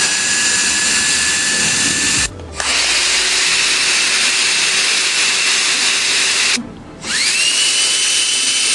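Hot air comb fan motors running one after another: a steady rush of air with a high motor whine. The sound drops out briefly twice. After the second break the next comb starts up with a rising whine that settles to a steady pitch.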